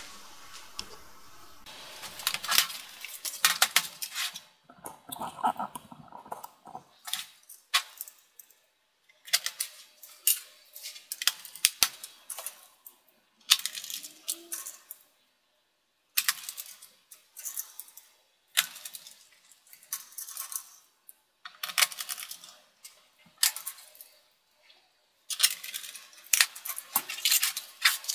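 Small metal screws and a screwdriver clicking and rattling in short bursts, again and again, as screws are driven back into a laptop's plastic bottom case.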